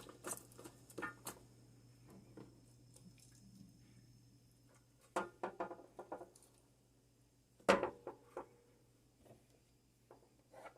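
Quiet kitchen handling: a few short clusters of light taps and rustles, with one sharper knock a little under eight seconds in, as vegetables and a pan are handled.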